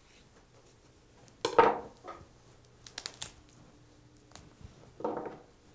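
A knife and hands working a rabbit carcass on a table, cutting the hide away from a foot joint: a few short knocks and scrapes, the loudest about a second and a half in, with sharp clicks around the middle and another knock near the end.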